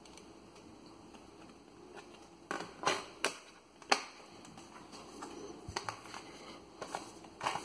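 Small clicks and rustling of a Blu-ray disc being handled and pressed onto the stacked-disc hub of a steelbook's clear plastic tray. About four sharp clicks come close together a little past halfway, and one more near the end.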